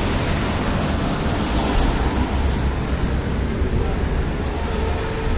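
Steady rumble of road traffic with no distinct event standing out.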